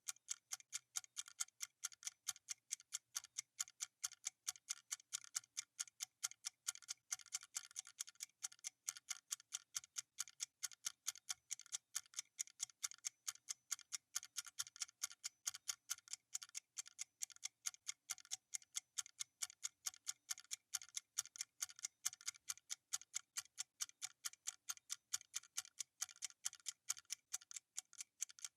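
Clock ticking sound effect: steady, even ticks, several a second, alternating stronger and weaker, marking off a countdown.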